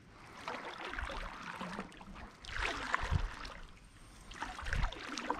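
Canoe paddle strokes: water swishing and dripping off the paddle blade, three strokes about two seconds apart, each with a dull low thud.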